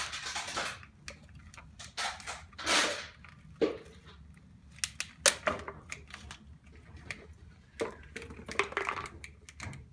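Empty plastic water bottles crinkling and clicking as they are handled and pressed into place on a skateboard deck, an irregular string of sharp crackles and taps.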